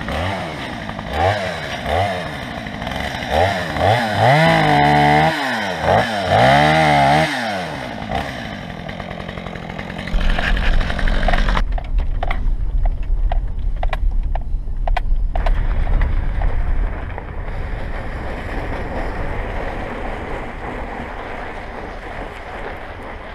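A chainsaw revving up and down several times over the first eight seconds or so, clearing trees blown down across a woods road. After that comes the deep, steady rumble of a pickup truck driving a rough snowy track, heard from inside the cab. The rumble eases off to a quieter, steadier level for the last few seconds.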